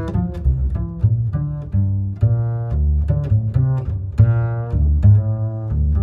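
Background music with a strong low bass line and quickly changing notes.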